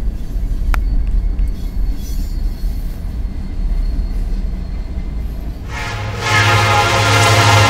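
Freight train passing with a low, steady rumble and a single click. About six seconds in, a diesel locomotive's air horn starts blowing, a loud sustained multi-note chord.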